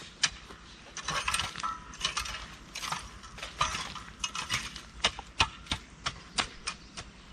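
A garden rake scraping and dragging through dirt and debris in quick, uneven strokes, with sharp clicks and clinks.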